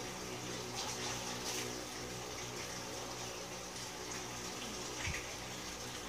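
Steady electrical hum and hiss from running repair-bench equipment, with a light handling click about five seconds in.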